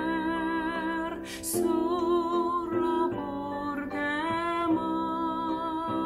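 A woman singing a ballad in Esperanto, holding long notes with vibrato and moving to a new note every second or so, over instrumental accompaniment.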